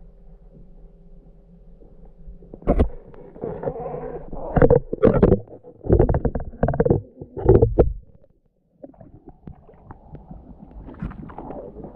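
Muffled knocks, scrapes and sloshing from an underwater camera being handled and pulled up through a hole in the ice, a run of loud thumps between about three and eight seconds in. After a brief dropout just past eight seconds, a softer rustling hiss with small knocks as the camera comes out into slush and air.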